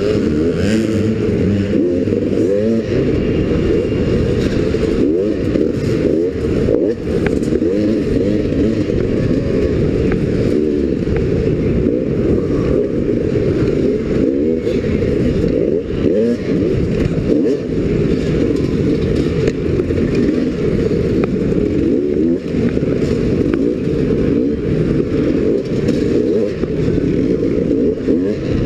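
Dirt bike engine revving hard and constantly, its pitch rising and falling with the throttle as it races over a rough dirt track, with scattered knocks and clatter from the bike.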